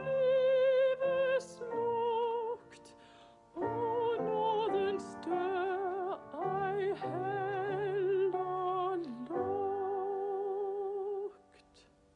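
A woman's voice singing a slow hymn with wide vibrato over a piano accompaniment, phrase by phrase, with short breaks about three seconds in and near the end.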